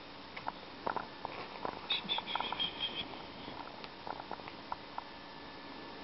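Soft rustling and scattered light clicks as a cat is handled and stroked on a lap, with a brief high, thin squeak about two seconds in.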